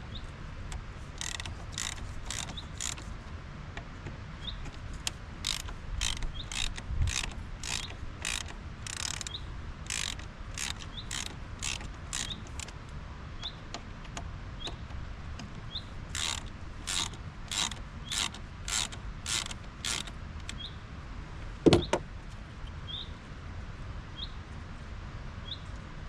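Ratchet wrench being worked on fasteners in a car's engine bay: runs of sharp clicks about two a second, in several spells, with one louder knock near the end.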